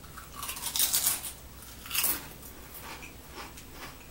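Potato chip bitten and crunched close to the microphone: a loud run of crisp crunches about half a second to a second in, another sharp crunch near two seconds, then quieter chewing.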